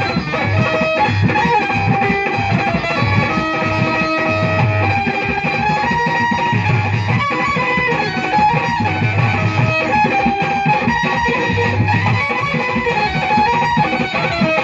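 Instrumental interlude from a live band: a sustained melody over a steady, regular low beat, with no singing.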